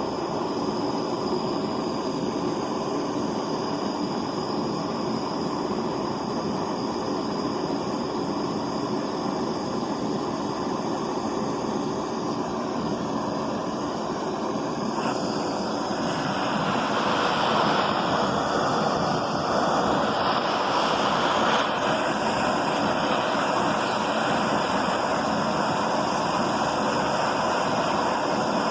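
Hand-held butane torch flame burning steadily, a continuous rushing hiss as it heats an aluminium bar for brazing with Durafix rod. About sixteen seconds in, the hiss gets a little louder and brighter.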